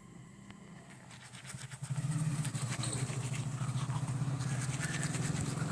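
An engine running steadily: it comes in and grows louder over the first two seconds, then holds.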